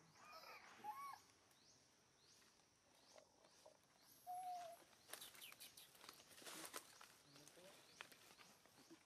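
Near-silent outdoor ambience with faint short animal calls and chirps, the clearest a brief call a little after four seconds in.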